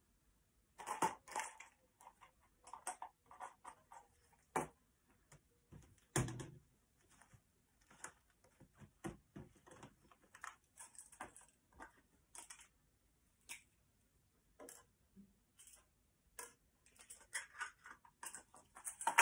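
Irregular rustling and small clicks of a cloth garment being handled and worked by hand, with a louder thump about six seconds in and a busier patch of rustling near the end.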